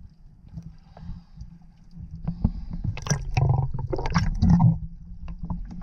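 Water sloshing and gurgling around a camera at and just below the sea surface, a muffled low rumble with scattered clicks. It turns louder and splashier for a couple of seconds around the middle.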